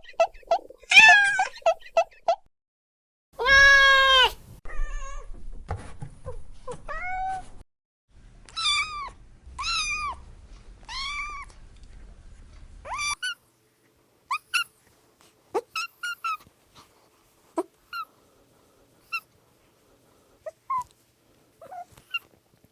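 Cats meowing: a few short mews at first, one long loud meow about three and a half seconds in, several rising-and-falling meows later on, then scattered short, high mews.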